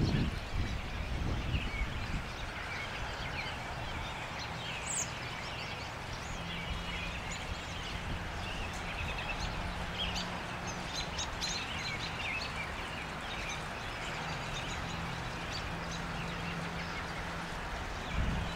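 A flock of American robins calling from the trees: many short, high chirps and squeaks scattered throughout, over steady outdoor background noise with a faint low hum.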